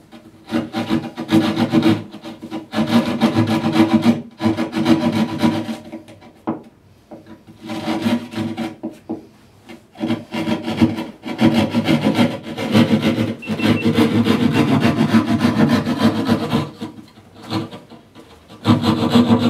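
A bare reciprocating-saw blade held in the hand, sawing through drywall in quick back-and-forth strokes to cut out a box opening, in several runs with two short breaks.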